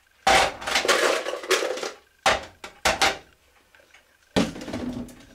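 Ice cubes dropped by hand into the plastic tank of a Nitinol spring heat engine, clattering and knocking in a quick run of hits over the first three seconds, with another burst of clatter a little after four seconds in.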